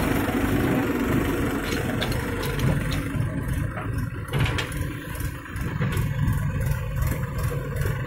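Diesel engine of a Mahindra 265 DI tractor running close by, a steady low rumble that dips briefly about five seconds in.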